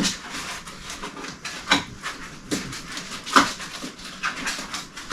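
Packing material being handled during unboxing: a quick, irregular series of short rustles, scrapes and clicks.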